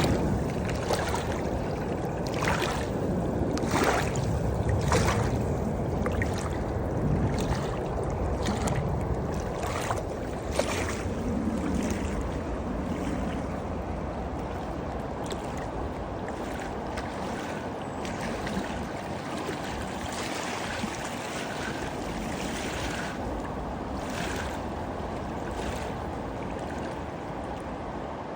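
Water rushing steadily, with many short splashes on top, more frequent in the first half.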